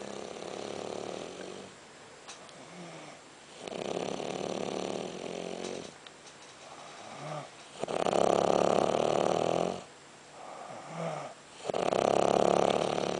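Snoring from a sleeper: four long snores about every four seconds, the last two the loudest, with short, softer breaths between them.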